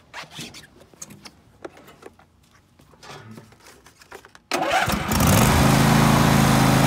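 Riding lawn mower engine, hooked to jumper cables, starting: after a few faint clicks it catches suddenly about four and a half seconds in and runs on steadily and loud.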